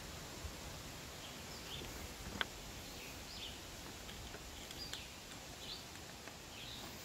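Quiet background with faint, scattered short bird chirps, and one light sharp click about two and a half seconds in, with a few smaller ticks, as an Allen key is worked in the bolt of a shotgun's bird's head grip.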